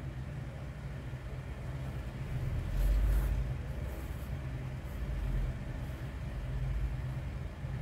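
Low steady background hum and rumble, swelling briefly about three seconds in and again, less strongly, around five seconds.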